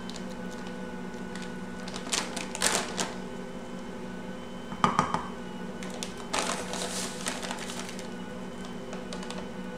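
Ankarsrum stand mixer's motor running steadily as its dough hook kneads bread dough. A bag of sugar rustles twice and a measuring cup knocks once about halfway through.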